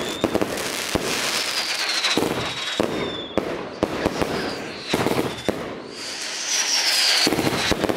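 Consumer fireworks going off: a dense run of sharp bangs, pops and crackles, with a high whistle falling in pitch twice, once in the first half and once near the end.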